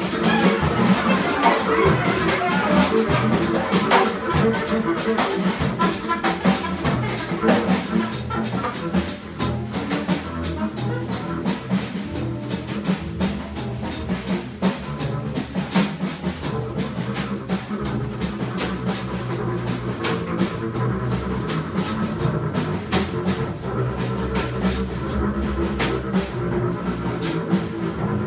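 Free jazz trio playing live: a drum kit driving fast, dense cymbal and drum strokes under a walking double bass and a saxophone line.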